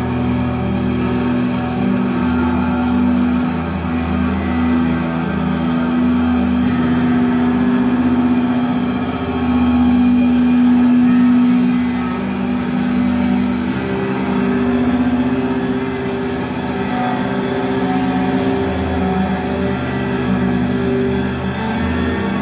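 Noise rock played live: a loud, dense drone of distorted electric guitars holding low pitches, with a swell and extra high hiss about nine to twelve seconds in.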